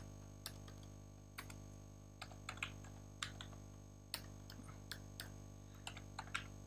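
Unhurried typing on a computer keyboard: single key clicks at irregular intervals, over a faint steady hum.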